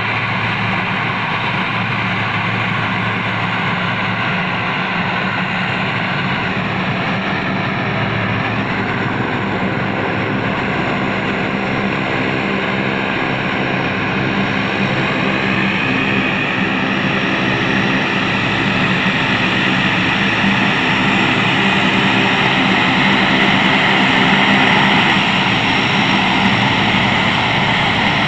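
The turboprop engines of a C-130 Hercules running steadily, loud, with a constant propeller drone that grows slightly louder over the stretch.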